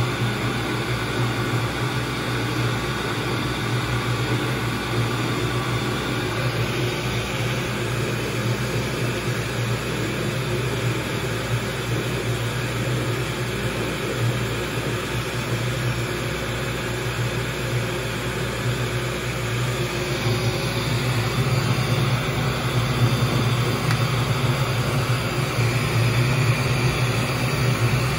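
CO2 laser cutting machine running, its fans and exhaust blower giving a steady low hum with air noise, which grows a little louder about two-thirds of the way through.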